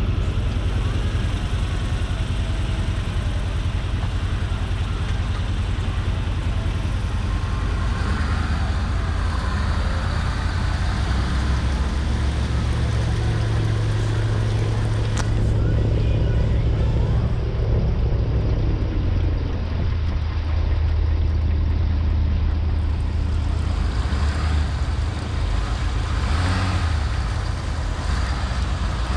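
Ford F-250 pickup's engine running steadily as the truck drives slowly up out of shallow river water, its tyres churning through the water.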